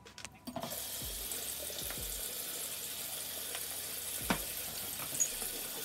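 Bathroom sink tap turned on about half a second in and running steadily into the basin, with a few faint clicks.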